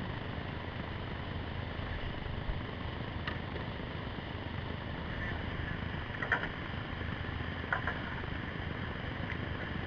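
Steady rush of whitewater in a boulder-filled creek rapid, heard from a kayak, with a few brief knocks about three, six and eight seconds in, the one near the middle the loudest.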